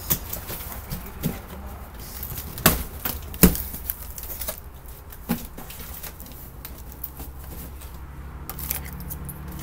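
A large cardboard shipping box being handled: scattered knocks and taps on the cardboard with light rustling between, the two loudest knocks a little under a second apart about three seconds in.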